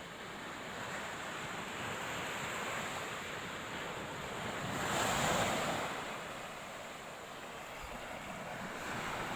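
Sea waves washing onto the shore in a steady rush, with one larger wave breaking loudest about five seconds in.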